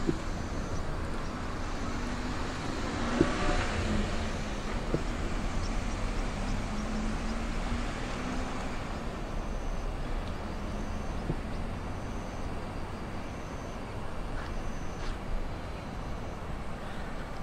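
Outdoor traffic ambience: a passing vehicle's noise, with a low hum, swells about three seconds in and fades away by about nine seconds.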